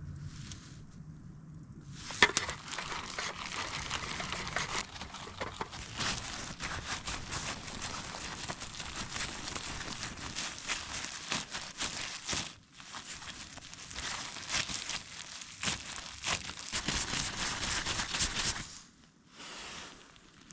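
Dense crinkling and rustling from hands working pizza-dough ingredients, a busy crackle of small clicks, with a brief pause partway through; it stops about a second and a half before the end.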